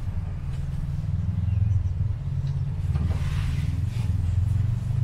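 Steady low rumble inside a moving cable car gondola as it rides along the cable, with a short hiss about three seconds in.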